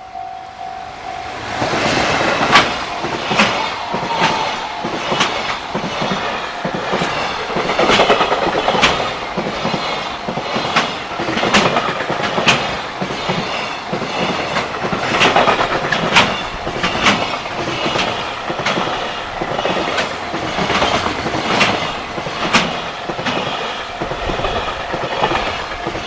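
Freight train passing at speed over a level crossing, its wheels clacking over the rail joints in many sharp clicks, starting about a second and a half in. A level-crossing warning bell rings with a steady pulsing tone at the start and carries on faintly under the train.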